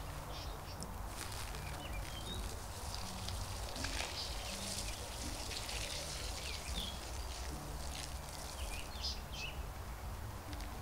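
Water-based insecticide drench poured from a plastic measuring jug onto bark mulch and soil, a steady splashing trickle. A few bird chirps.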